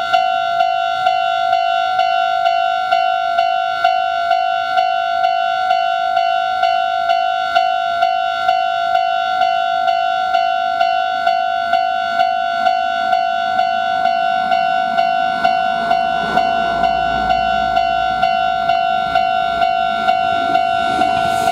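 Japanese railway level-crossing warning bell ringing steadily, about two strikes a second. From about halfway through, the rumble of an approaching Meitetsu train grows louder under the bell and is loud near the end.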